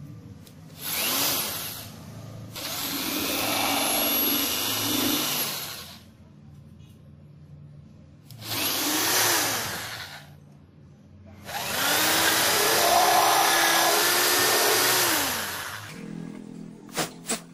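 Small electric drill boring holes into a vinyl-covered MDF speaker box beside a speaker cutout, run four times: two short runs and two longer ones of about three to four seconds. Each time the motor spins up, holds a steady pitch, then winds down. Two sharp clicks come near the end.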